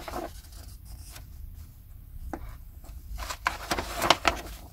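Magazine pages being handled and turned: soft paper rustles, then a cluster of crisp paper snaps and clicks from about three to four and a half seconds in.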